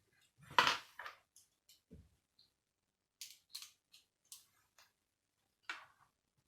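Scattered light clicks and taps from a small hand tool and small parts being handled on an RC car's rear hub. A louder knock comes about half a second in, with a few sharp, high clicks spread out after it.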